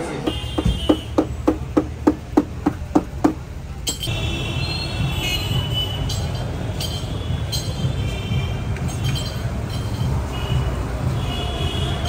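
City street traffic: a steady rumble of passing cars with repeated short car horn honks, starting about four seconds in. Before that comes a quick, even beat of about three thumps a second that stops suddenly.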